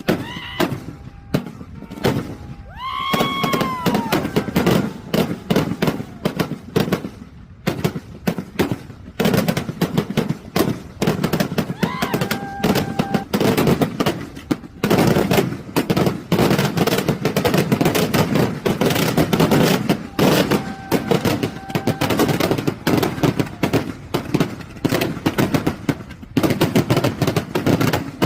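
Festival fireworks going off in a dense barrage of sharp bangs, sparser at first and almost continuous from about nine seconds in.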